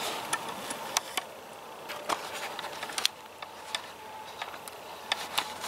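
Irregular short clicks and taps over a steady faint outdoor hiss.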